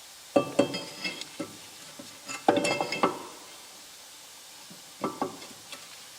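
Brake disc clanking and ringing against the metal of the wheel hub as it is handled and fitted onto it, in three bursts of metallic clinks: about half a second in, around two and a half seconds, and about five seconds in.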